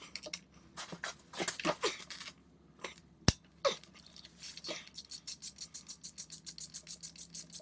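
Ratchet on a 10 mm socket clicking in a fast, even run, about seven clicks a second, as a bolt is turned. Before it come scattered tool clicks and knocks and one sharp click.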